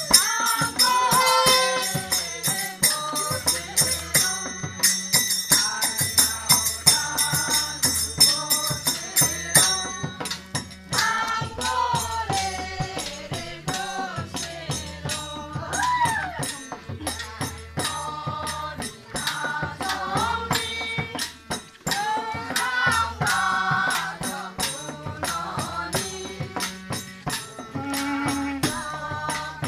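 Garo folk song performed live: voices singing over a steady beat of drums and rattling percussion. A ringing metallic tone runs over the first third.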